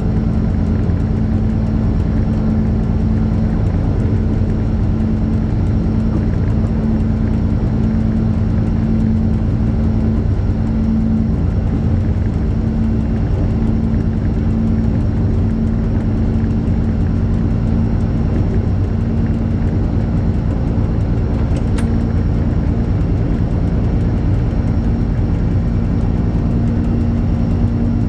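Diesel locomotive engine running steadily: a constant hum over a low rumble that holds without change.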